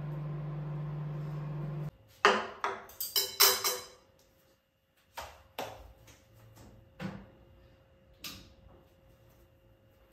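Hot water pouring steadily from an electric kettle into a glass for tea, stopping abruptly about two seconds in. Then a quick run of loud clinks and knocks of kitchenware, followed by a few scattered quieter knocks.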